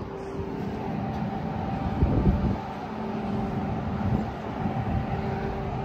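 Passenger train running: a steady low rumble with a faint steady hum over it, swelling heavier for a moment about two seconds in.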